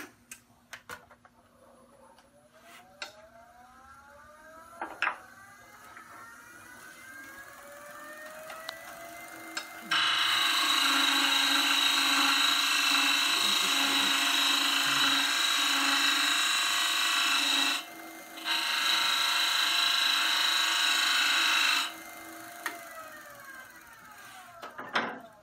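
Small wood lathe spinning up, its motor whine rising in pitch for several seconds. Then a shop-ground gouge with a 37.5° included angle cuts the end face of the spinning wood, a loud steady scraping noise lasting about eight seconds. The cut breaks off briefly, goes on a few seconds more, and the lathe then winds down with a falling whine near the end.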